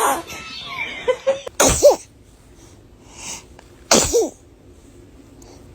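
A baby sneezing twice, about two seconds apart. Each sneeze is a sharp burst of breath ending in a brief high rise and fall of voice.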